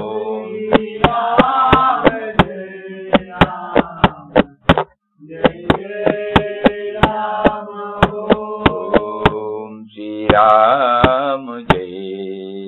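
Devotional chant music: a sustained pitched melody over sharp percussion strikes about three a second, with a brief break about five seconds in and wavering, vibrato-like passages around a second in and again near the end.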